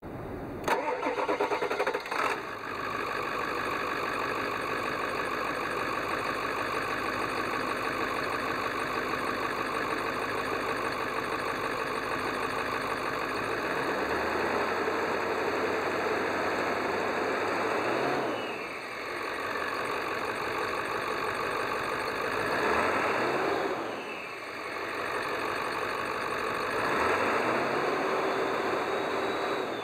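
A 1999 Ford F350's 7.3-litre Powerstroke turbo diesel V8 starts about a second in and settles to a steady idle. In the second half it is revved three times, each time rising in pitch and falling back to idle.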